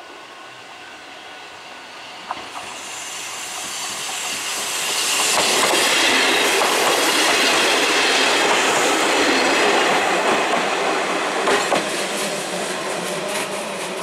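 An Eizan Electric Railway Kurama Line electric train passing close by. The noise of its wheels on the rails builds over a few seconds, stays at its loudest through the middle and then fades, with a few sharp clicks from the wheels near the start and near the end.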